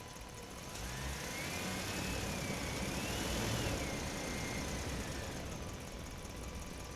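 A vehicle driving through a parking structure: engine and road rumble swelling about a second in and easing off near the end, with a thin high whine that rises and falls over it.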